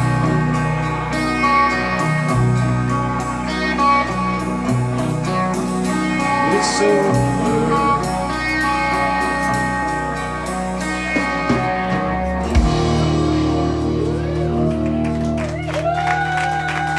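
Rock band playing the closing bars of a song with guitar to the fore, the lead guitar bending notes over a final held chord that rings out near the end.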